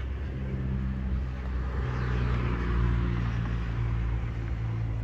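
A motor vehicle engine passing by, a steady low hum with a rushing noise that swells to a peak near the middle and then eases off.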